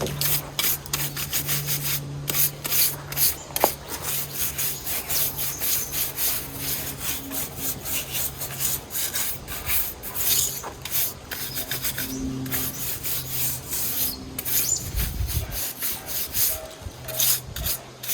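Irregular strokes of something rubbing and scraping over wood, several a second, like hand sanding or rasping, over a steady low hum.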